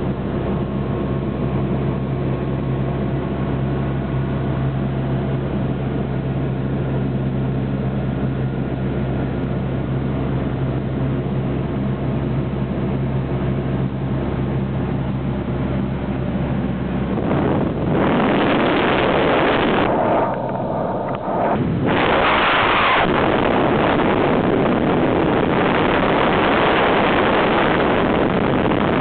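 Cessna 177 Cardinal's four-cylinder Lycoming engine running steadily, heard inside the cabin, with its propeller drone. About 17 seconds in, loud wind rush on the microphone takes over as the camera is held outside the open cabin window in the slipstream, dipping briefly a few seconds later.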